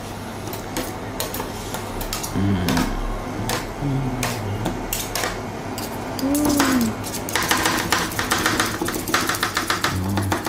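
Metal spatulas tapping and scraping on a steel ice-cream cold plate as rolled-ice-cream mix is chopped. The taps are scattered at first, then become a fast, continuous chopping clatter about seven seconds in.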